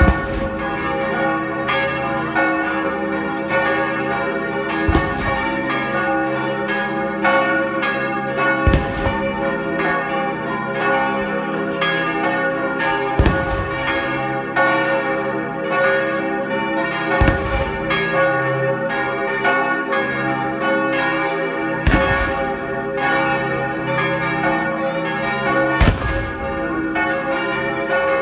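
Church bells pealing together, several bells ringing at once, with a deep bell striking about every four seconds.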